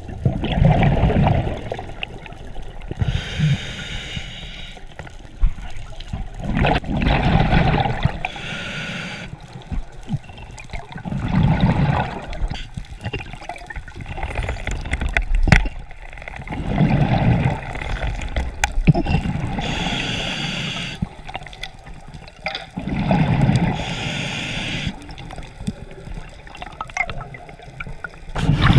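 Scuba breathing through a regulator underwater: a hiss on each inhalation alternating with a burst of exhaled bubbles, repeating about every five to six seconds.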